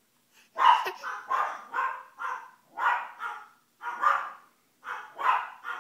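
Small dogs barking repeatedly, about ten short, sharp barks roughly half a second apart.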